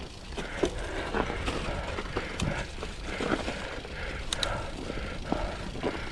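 Mountain bike rolling over rough trail: irregular clicks and rattles from the bike over a steady low rumble.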